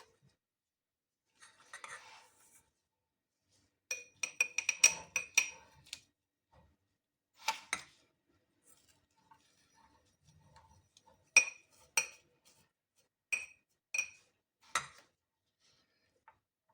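A glass jar clinking and ringing as something hard, such as a utensil, taps against it while the jar is filled with sliced onions and sugar. First a soft rustle, then a quick flurry of clinks about four seconds in, a pair a little later, and five single clinks spaced about a second apart near the end.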